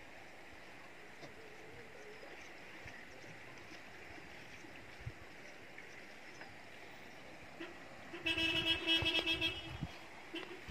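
Steady low background hiss, then about eight seconds in a vehicle horn sounds one long steady toot lasting about a second and a half, with a brief second toot near the end.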